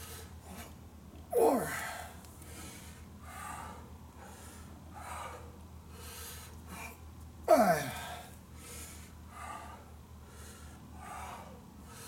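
A man breathing hard and rhythmically through barbell deadlift reps, with two loud, strained vocal exhalations that fall in pitch, about a second and a half in and again about seven and a half seconds in, in step with the lifts.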